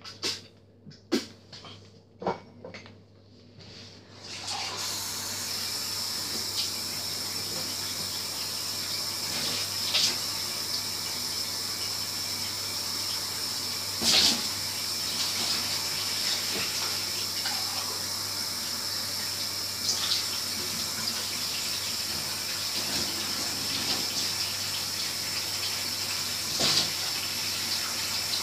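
Kitchen sink tap turned on about four and a half seconds in and left running steadily into the sink while a mouth is rinsed under it, with a few brief louder splashes. Before the water starts there are a handful of short, sharp clicks.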